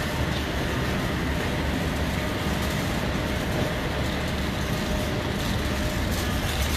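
Wheels of a wire shopping cart rolling over a concrete store floor: a steady, low rumble.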